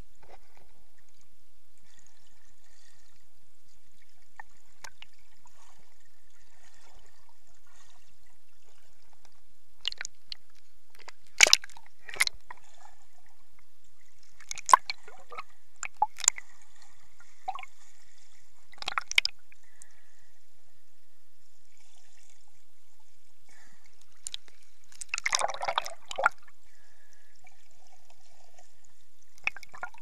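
Water heard from a camera held underwater in shallow sea: faint sloshing and gurgling with scattered sharp clicks and knocks, and a longer, louder rush of noise about 25 seconds in.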